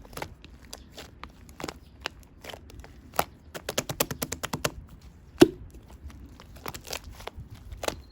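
Scattered sharp clicks and taps, with a quick run of them about three and a half seconds in and one loud knock about five and a half seconds in.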